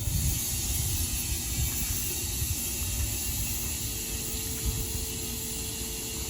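A steady hiss of pressurised air starts abruptly and runs on, with an uneven low rumble beneath. It comes while a tire's bead is being forced to seat on its rim, and the attempt does not take.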